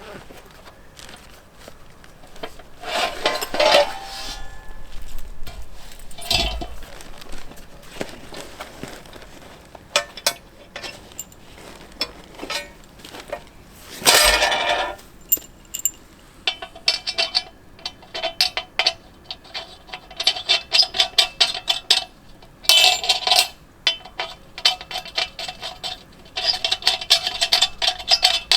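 Cooking utensils and dishes clinking and knocking as they are handled, with a run of quick, closely spaced taps through the second half.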